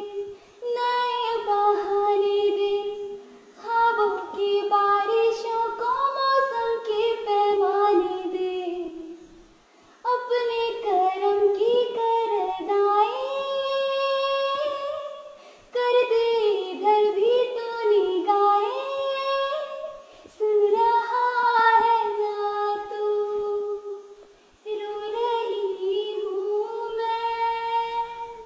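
A girl singing a song solo and unaccompanied, in long phrases of held, wavering notes with short pauses for breath between them.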